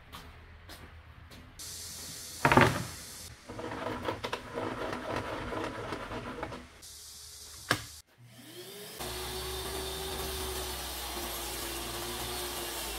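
Boards being handled: a hard knock of wood set down a couple of seconds in, then rattling and scraping. About eight seconds in a jobsite table saw starts, its motor spinning up to a steady whine, and runs on as a merbau board is fed through the blade.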